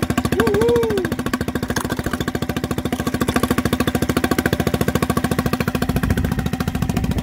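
Mercury 3.5 hp four-stroke single-cylinder outboard running steadily and evenly in a test bucket, with a fast regular firing beat and no misfires, now that its carburettor has been rebuilt.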